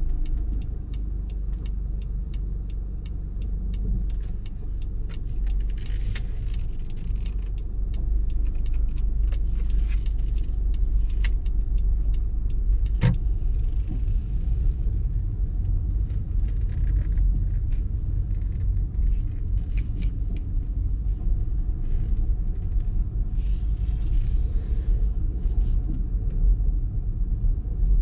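Car driving, a steady low rumble of road and engine. A quick regular ticking of about three ticks a second runs through the first eight seconds or so, and a single sharp click comes about 13 seconds in.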